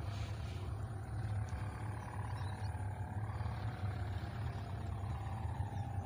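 Wind buffeting the microphone in a steady low rumble, with a fainter hum that wavers slowly up and down in pitch.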